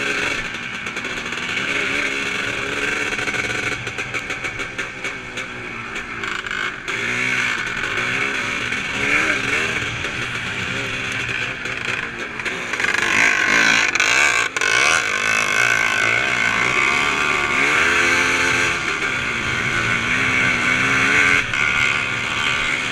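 Onboard sound of a vintage 350-class motocross bike's engine revving hard and easing off again and again as it is ridden round a dirt track. The sound turns choppy a few seconds in, is loudest about halfway through with a brief sudden dip, and rises and falls once more later on.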